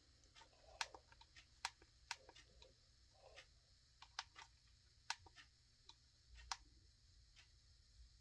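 Faint, irregular clicks of the plastic buttons on a Smartro SC91 projection alarm clock being pressed, about a dozen sharp clicks spread unevenly over several seconds.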